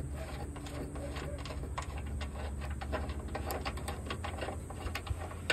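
Light, irregular clicks and small scrapes of a loosened metal bolt being unscrewed by hand from a steel bracket, over a steady low hum.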